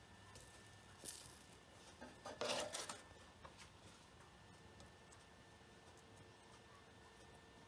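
Soft handling noises as raw beef liver skewers are laid into a non-stick air fryer basket: a small click about a second in, then a brief scraping rub around two and a half seconds, with the room otherwise near silent.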